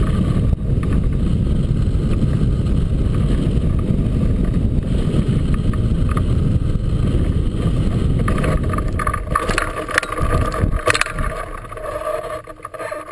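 Airflow buffeting the microphone of a camera mounted on a hang glider's keel, a steady low rush during the landing approach that eases off as the glider slows near the end. A few sharp knocks and rattles come as it touches down.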